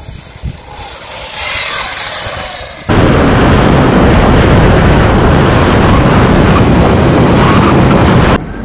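Heavy wind buffeting on the microphone of a dirt bike ridden at about 61 km/h. It is a loud, even rushing roar that starts abruptly about three seconds in and cuts off near the end.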